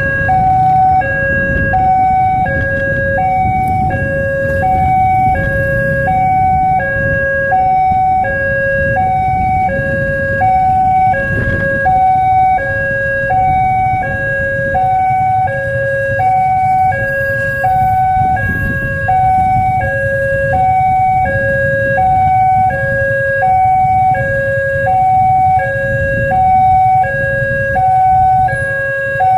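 Electronic railway level-crossing warning siren, the signal that a train is approaching and the crossing is closing. It alternates steadily between a high and a low tone, each held for about 0.7 s, over the low rumble of road traffic.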